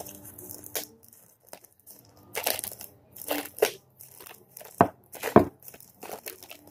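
Thin protective plastic wrap crinkling and tearing as it is pulled off a Wyze Cam, with two sharp knocks near the end as the small camera is set down on the table.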